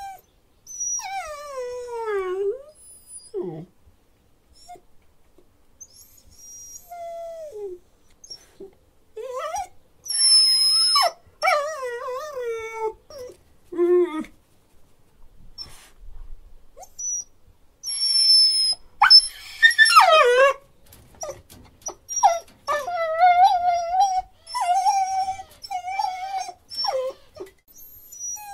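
Dog whining: a string of pitched whines and whimpers with short pauses between them, several sliding down in pitch, a few very high thin cries midway, and a run of wavering whines near the end.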